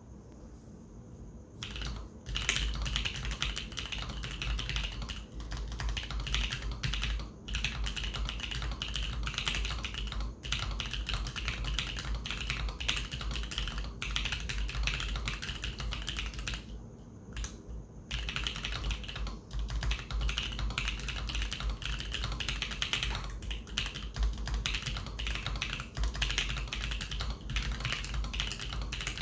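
Steady fast typing on a custom mechanical keyboard: an acrylic stacked case with a carbon fibre plate, lubed switches and PBT keycaps. The typing starts about two seconds in, with brief pauses a few times, the longest just over halfway through.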